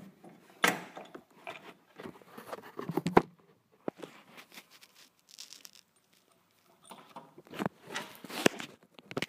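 Small metal hardware being handled: washers, a lock washer and a nut clinking and scraping as they are fitted onto a bolt, in irregular taps and scrapes with a few sharper knocks.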